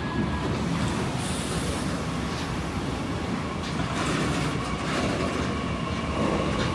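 Freight train passing, its wagons' wheels running over the rails in a steady noise, with a thin steady squeal coming in about four seconds in.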